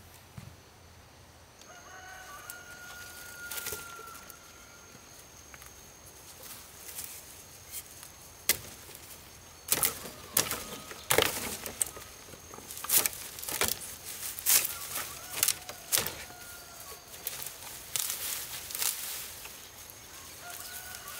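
Ferns and undergrowth rustling and snapping, with stones knocking, as rocks are pulled out of the ground by hand; the rustles and knocks come thick and loud in the second half. A rooster crows a few times, about two seconds in, in the middle and at the end.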